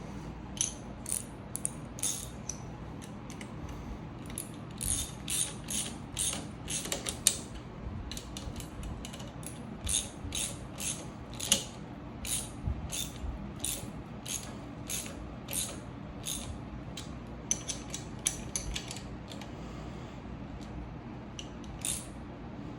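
Hand ratchet wrench clicking as bolts are tightened, in runs of quick clicks broken by short pauses.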